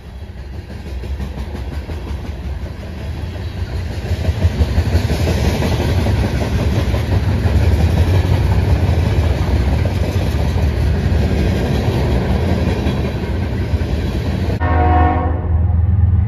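Freight cars rolling past close by: a steady rumble and rush of steel wheels on rail that grows louder about four seconds in. Near the end an approaching locomotive sounds its air horn, a chord of several tones held for about a second.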